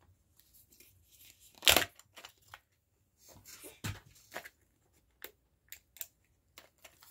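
Kinder Joy egg packaging being handled: the wrapper tearing and the plastic toy capsule clicking, in scattered short rustles and clicks, louder once about two seconds in and again near four seconds.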